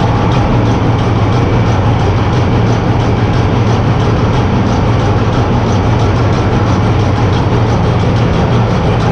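Ship's main diesel engine running, heard on the cylinder-cover level: a loud, steady mechanical din over a deep constant hum.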